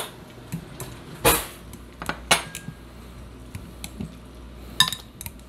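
Metal potato masher pressing avocados in a glass bowl, making a few sharp clinks and knocks against the glass, the loudest about a second in.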